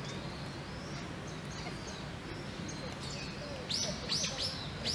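Otters play-wrestling, giving a quick run of about four short, high-pitched chirps near the end, each sweeping down in pitch, over steady background noise.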